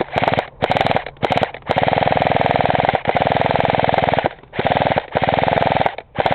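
Airsoft rifle firing on full auto in several long rapid bursts with short breaks between them, laying down covering fire.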